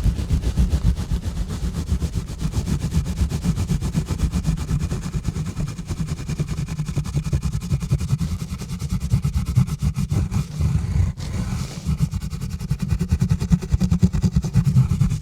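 Exfoliation gloves rubbing and scratching directly on a bare microphone: a fast, continuous run of scrubbing strokes heard mostly as a deep rumble with a faint hiss on top, briefly easing off near the end.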